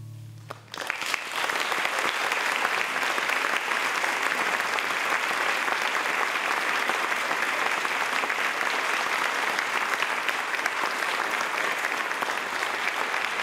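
Audience applauding steadily, starting about a second in as the last acoustic guitar chord of the song dies away.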